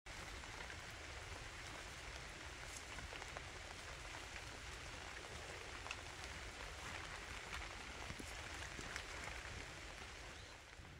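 Steady rain falling, with scattered individual drops ticking.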